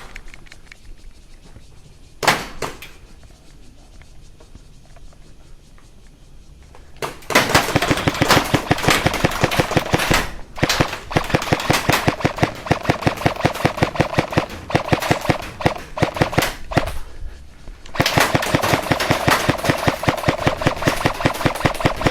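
Airsoft guns firing in rapid full-auto bursts, a near-continuous clatter of shots. There is one sharp shot about two seconds in, then the firing starts in earnest about seven seconds in and keeps on, with short breaks around ten and seventeen seconds.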